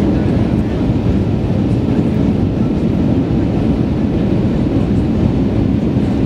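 Steady low cabin rumble of an Airbus A320 on approach, heard inside the cabin beside the wing: the engines running and air rushing past the fuselage.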